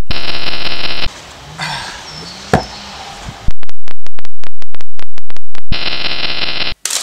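Harsh synthesized electronic noise from a homemade circuit. A loud buzzing tone gives way to a quieter hiss with low warbling glides and one sharp click. Then comes a very loud pulsing of about five pulses a second, and the buzz returns and cuts off abruptly.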